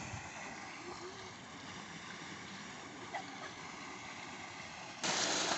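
Water from a tubewell pipe rushing steadily into a concrete tank, faint and distant at first. About five seconds in it cuts sharply to the loud, close gush of the outflow.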